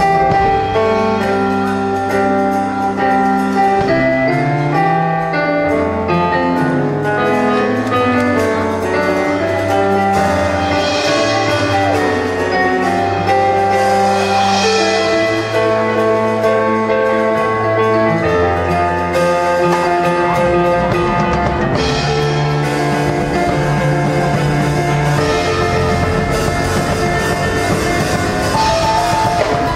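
Stage keyboard played live in a piano voice, chords and melodic runs, with cymbals and drums joining in the second half.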